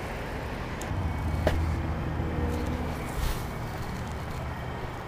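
A low mechanical hum, like a vehicle passing on a nearby road, rises about a second in and fades after about three seconds. Two sharp clicks come about a second in, and leaves and branches rustle as someone pushes through brush.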